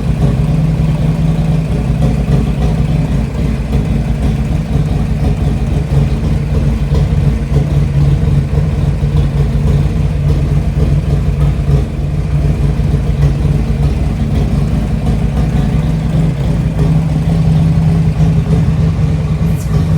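Rebuilt Harley-Davidson Twin Cam V-twin engine running loudly and steadily, its pitch holding nearly constant.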